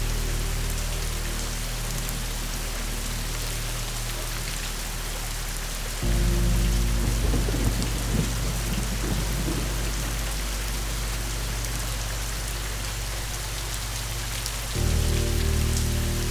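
Steady rain with rumbling thunder, over a soft, sustained low music drone that shifts to a new chord about six seconds in and again near the end.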